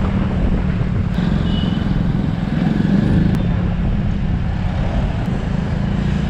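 Motorcycle engine running steadily as the bike is ridden, with wind and road noise and other traffic around.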